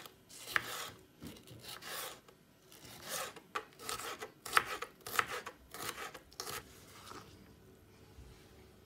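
Kitchen knife cutting a red bell pepper into strips and dice on a wooden cutting board: about a dozen irregular cutting strokes, each one the blade passing through the pepper and meeting the board. They stop about seven seconds in.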